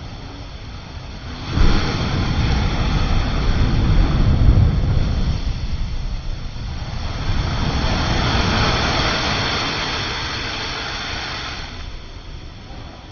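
North Sea waves breaking and washing up the shore. The sound comes in suddenly about a second and a half in with a low rumble, swells again as a hissing wash, then fades near the end.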